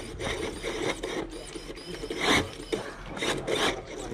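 Scale RC rock crawler working its way over the competition course, its tyres and chassis scraping and grinding against the obstacles in rasping bursts, the loudest about two seconds in.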